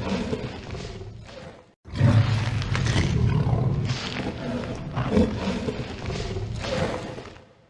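Tyrannosaurus rex roar sound effect: a deep roar fades out, a brief silent break follows, then a second long roar comes in loud and rolls on in several swells before fading away near the end.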